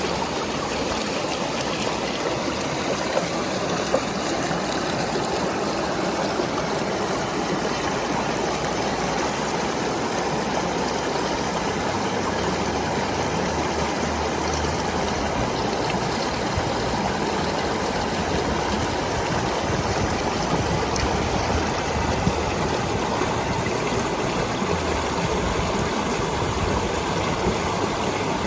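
A small waterfall in a stream: water splashing and running steadily over rocks.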